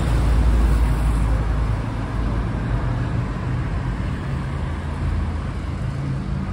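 City road traffic: vehicles running past with a low rumble, loudest in the first couple of seconds and then easing off slightly.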